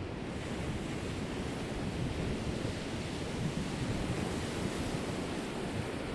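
Ocean surf washing onto the shore with wind blowing. A hissing wash swells up right at the start and carries on steadily over a low rumble.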